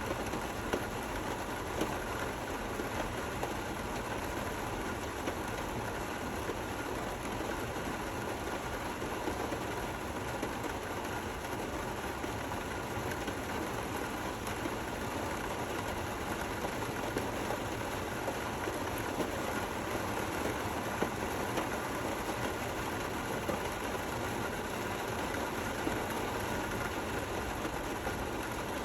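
Steady rain falling, an even hiss with occasional slightly louder drops.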